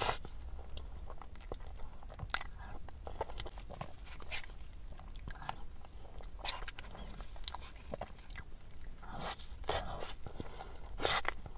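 Close-up eating sounds of a soft, melting custard-filled crêpe towel roll being spooned into the mouth: wet smacking and chewing with many short clicks, and a few louder mouthfuls near the end.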